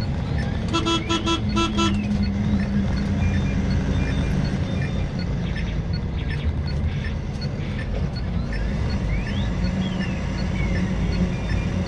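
Steady engine and road drone of a lorry on the move, heard from inside the cab. About a second in, four short, quick beeps sound in a row.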